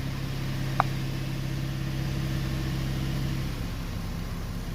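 Ford Mustang engine idling steadily with its fuel rail pressure sensor unplugged, the idle note shifting about three and a half seconds in. A single short beep sounds about a second in.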